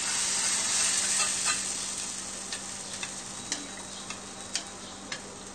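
Hot spiced-oil tempering (tadka) sizzling as it is scraped from a small pan into sambar, the hiss slowly dying away. A metal spoon clicks against the pan and bowl about eight times.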